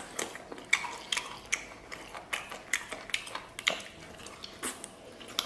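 Close-up mouth sounds of a person biting and chewing tender braised pork off a pork leg bone: wet smacks and clicks at about three a second.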